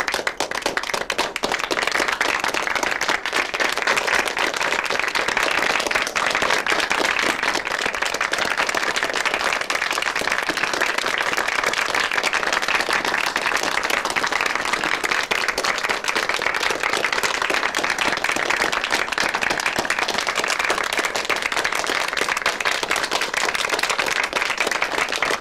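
A dense, even crackle of many quick, sharp pops, a sound effect that begins with a few separate pops and then holds steady.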